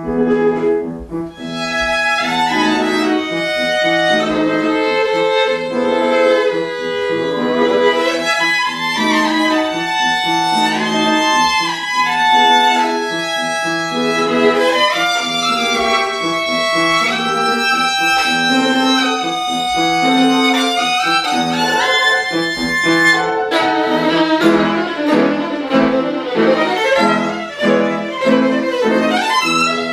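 Violin playing a classical melody with piano accompaniment, with some sliding shifts between notes. The sound grows fuller and denser a few seconds before the end.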